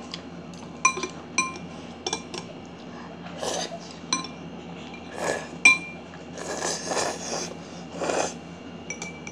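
Eating utensils clinking against a bowl of Chapagetti noodles: about half a dozen sharp ringing taps. Between them come a few short, noisy bursts from slurping the noodles.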